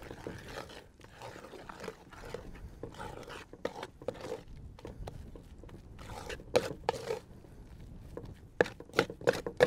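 Metal spoon stirring thick masa dough in an enamel bowl: irregular scraping strokes, with sharp clicks of the spoon against the bowl coming more often near the end.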